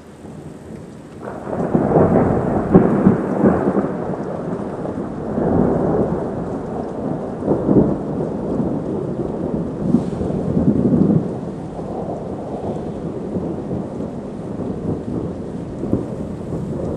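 Long peal of thunder that breaks in about a second in, is loudest over the next few seconds, and rolls on with several louder cracks before settling to a lower rumble. Rain falls throughout.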